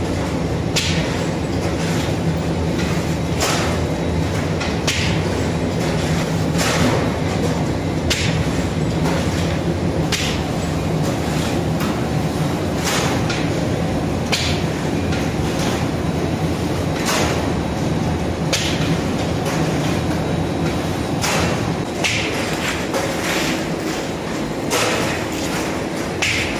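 Automatic lavash bread production line, dough sheeter and conveyor oven, running with a steady mechanical hum. A sharp clack recurs every second or two.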